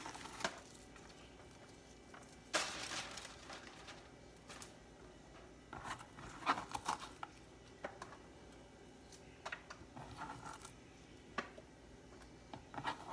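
Scattered light rustles and clicks as hands spread chopped onion over pork steaks in a disposable aluminium foil pan. A longer rustle comes about two and a half seconds in.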